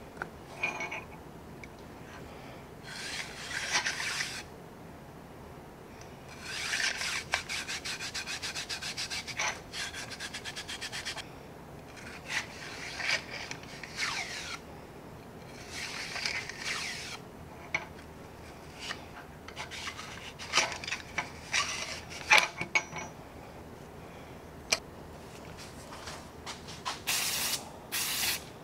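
A bronze bore brush scrubbing the greased steel frame of an 1851 Navy revolver, in bursts of fast back-and-forth strokes with pauses between them, with a few sharp clicks later on. Near the end come short hissing bursts like an aerosol spray.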